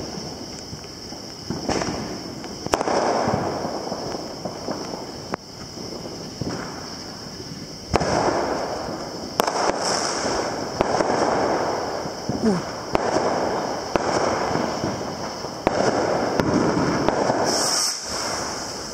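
Consumer fireworks going off: repeated sharp bangs every second or two, each trailed by crackling, over a steady high-pitched drone.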